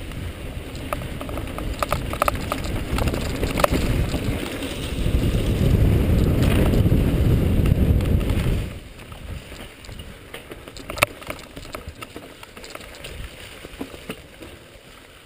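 Mountain bike ridden fast down a leafy dirt singletrack, heard from a camera on the rider: wind buffeting the microphone and tyre rumble, with sharp clicks and rattles of the bike over roots and rocks. The rumble builds to its loudest between about five and nine seconds in, then drops off suddenly to a lighter rattle.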